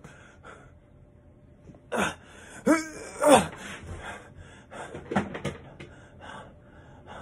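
A heavy man gasping and groaning for breath, out of breath from trying to do push-ups. A few short, strained gasps fall in pitch, starting about two seconds in.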